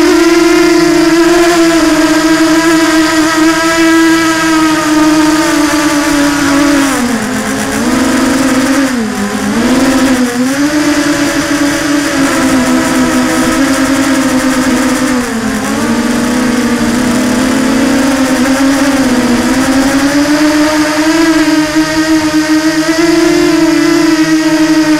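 FPV quadcopter's electric motors and propellers buzzing in flight, the pitch sagging and recovering several times through the middle as the throttle changes, then rising again near the end.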